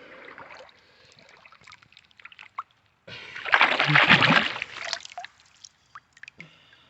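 Water sloshing and trickling, with a louder splashing stretch of about two seconds in the middle and small drips and clicks around it.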